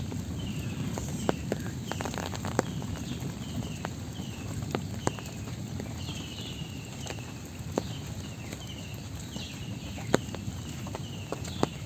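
An animal, a bird or frog, calling with short, high chirps that fall in pitch, about two a second, over a steady low rustle with scattered sharp taps.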